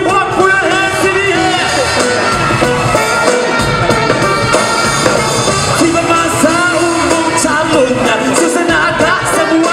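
A man singing into a microphone over loud, steady backing music.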